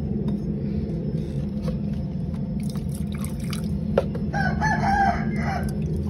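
A rooster crows once, a wavering call about a second long starting a little past four seconds in, over a steady low hum.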